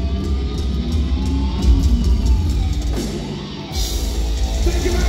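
Thrash metal band playing live, with distorted electric guitars, bass and drums at full volume. About three seconds in the low end briefly drops out, then the full band crashes back in with cymbals.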